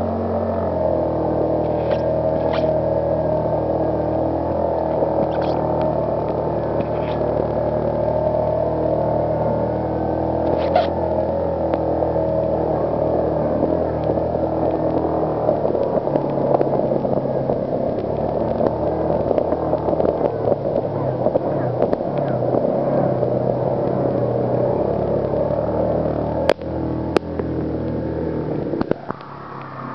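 Engine of an off-road vehicle running steadily while driving on a bumpy dirt trail. Its even hum holds one pitch for the first half, then gives way to rougher, noisier running, with a few sharp knocks and rattles, two of them close together near the end.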